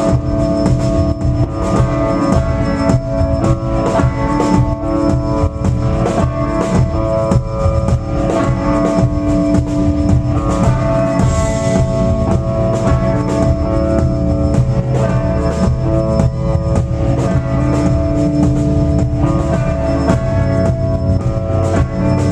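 A band playing a song: a drum kit keeps a steady beat under held chords, guitar and a full bass line.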